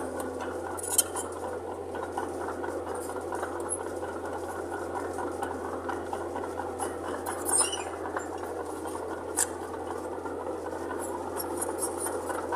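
Mitsubishi BD2J bulldozer's diesel engine running steadily, with a few sharp metallic clinks.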